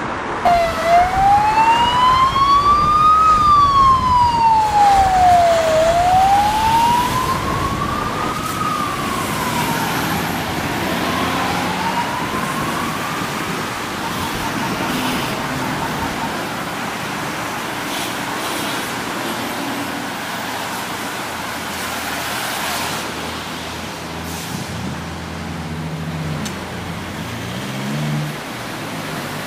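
Ambulance siren wailing in a slow rise and fall, each sweep taking two or three seconds. It is loudest at first and fades away about halfway through, leaving steady street traffic noise.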